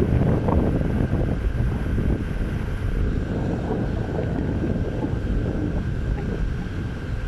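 Wind buffeting the microphone: a loud, rough, steady rumble with a faint steady whine underneath.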